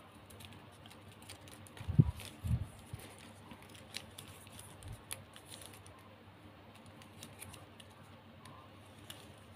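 Glossy ribbon strips being handled and folded by hand, with light crinkles and small clicks, and two dull thumps about two seconds in.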